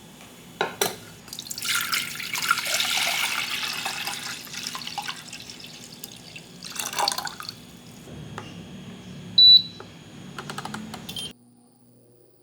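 Water running or pouring in a kitchen, with a few clicks and knocks of kitchenware around it. A short, high beep about nine and a half seconds in is the loudest moment, and the sound cuts off suddenly near the end.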